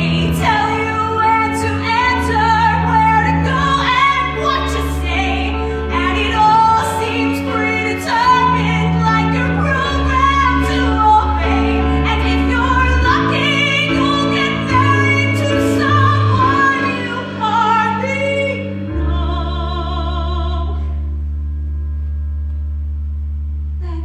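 Woman singing a musical-theatre song live over instrumental accompaniment with steady low bass notes. From about nineteen seconds in she holds one long final note.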